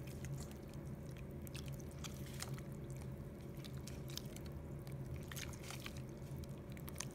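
A hand squeezing and mashing soaked bagel pieces in water in a stainless steel pot: irregular wet squishing with small sharp clicks, over a steady low hum.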